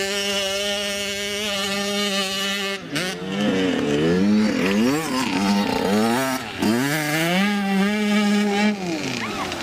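Dirt bike engine at high revs: it holds a steady note for about three seconds, then revs up and down several times as the throttle is worked, and holds steady again before dropping off near the end.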